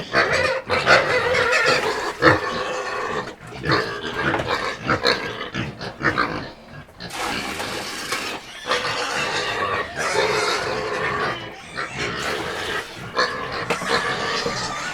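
Pigs squealing and calling almost without pause, with short breaks about seven and eight and a half seconds in.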